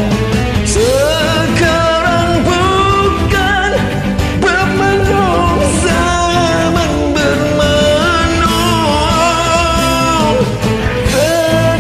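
Karaoke backing track of a Malay pop song playing, with a lead melody line over full band accompaniment.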